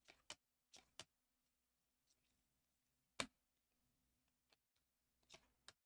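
Faint, sharp clicks of glossy trading cards being thumbed off a stack one at a time, about seven over a few seconds, the loudest about three seconds in, over a faint steady hum.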